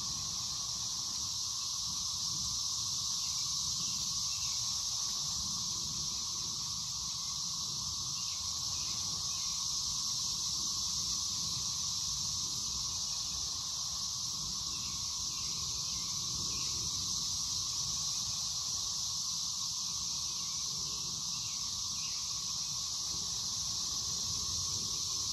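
Chorus of 13-year periodical cicadas of Brood XIX, a steady, unbroken high-pitched drone of many insects calling at once.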